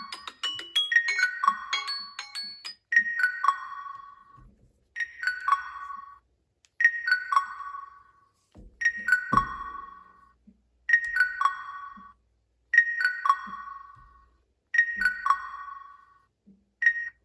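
Smartphone incoming-call ringtone: a short falling three-note chime repeating about every two seconds, after a busier run of quick notes in the first two seconds.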